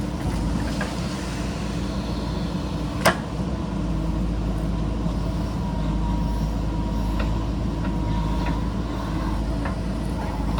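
JCB backhoe loader's diesel engine running steadily under work, with a single sharp clank about three seconds in.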